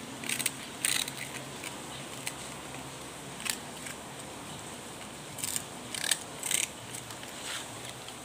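Puppy crunching a crumbly biscuit treat: several short, sharp crunches at irregular intervals as it chews.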